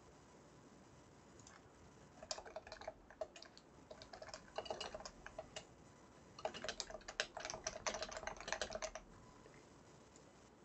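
Keystrokes on a computer keyboard: two bursts of quick typing, the first starting about two seconds in and the second, faster and denser, ending about a second before the close.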